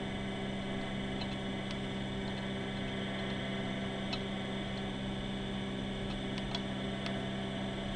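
Steady electrical mains hum over a faint hiss, with a few faint clicks scattered through.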